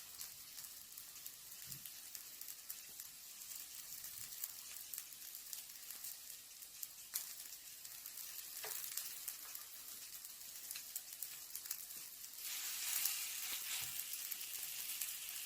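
Korean sanjeok skewers and perilla leaves pan-frying, a steady high sizzle dotted with small crackles and pops. The sizzle grows louder about three-quarters of the way through.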